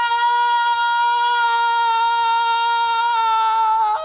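A woman's long scream of grief held on one steady high pitch. It drops in pitch and breaks off near the end.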